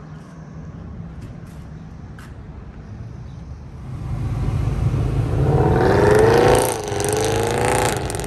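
Straight-piped Mercedes-Benz C63 AMG V8 pulling away hard: a low rumble for the first few seconds, then a loud, rising engine note that drops back once at a gear change and climbs again.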